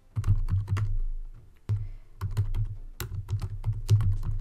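Computer keyboard typing: irregular bursts of keystrokes, each a sharp click with a dull thud under it.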